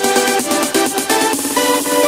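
Background electronic dance music with a quick beat and short repeated synth notes.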